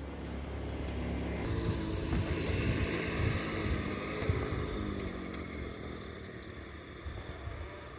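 A small motor engine passing by, its note rising, then falling and fading over several seconds.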